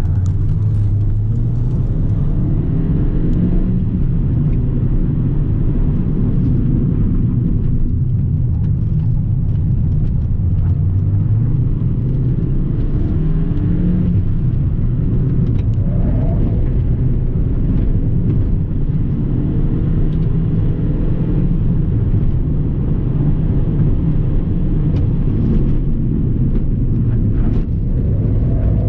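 Ford Fiesta ST mk7's 1.6 EcoBoost turbocharged four-cylinder heard from inside the cabin under hard driving, the revs repeatedly climbing and dropping through gear changes, over steady tyre and road noise. A few short clicks come through near the end.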